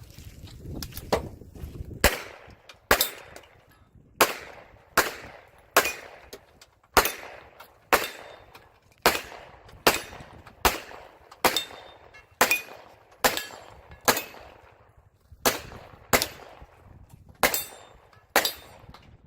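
Pistol fired shot after shot in a competition stage, about eighteen sharp reports, roughly one every 0.8 s, with a few slightly longer pauses between groups.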